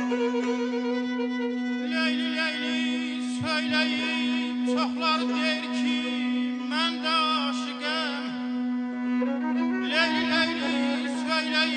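Azerbaijani mugham instrumental: a kamancha (bowed spike fiddle) plays a wavering melody with wide vibrato in several phrases, over a steady low drone.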